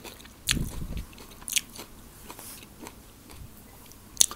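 A person chewing a mouthful of quinoa salad with the mouth closed, close to the microphone: soft wet mouth sounds and small clicks, with a louder low burst about half a second in and a sharp click near the end.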